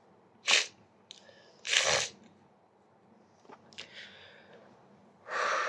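A tearful man sniffing and breathing sharply through the nose three times, the last breath longer.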